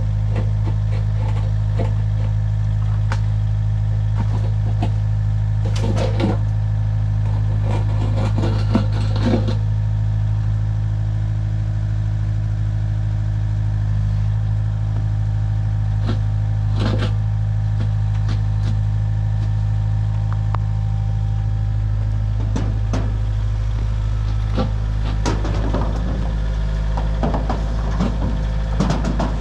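A heavy vehicle engine running steadily at an even, low pitch, with short clanks and rattles now and then, bunched about six to nine seconds in, around seventeen seconds and again near the end.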